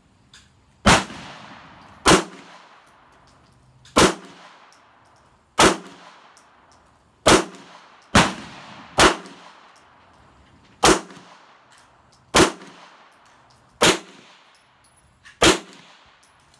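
Handgun fired eleven times in a slow, uneven string, one shot every one to two seconds, each sharp crack followed by a short echoing tail.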